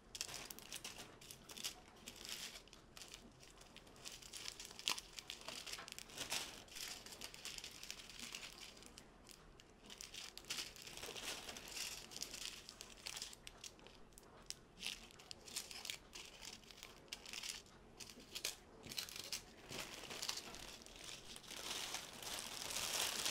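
Small plastic bags of diamond-painting drills and clear plastic wrapping crinkling and rustling as they are handled, an irregular run of crackles throughout.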